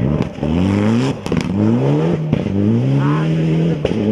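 Mitsubishi Lancer Evolution X rally car accelerating hard, its engine note climbing in pitch three times with a short drop at each gear change, then holding steady. A few sharp cracks come over the engine note.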